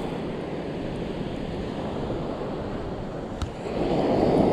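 Surf breaking on a sandy beach, with wind buffeting the microphone. A single click about three and a half seconds in, and the surf grows louder near the end.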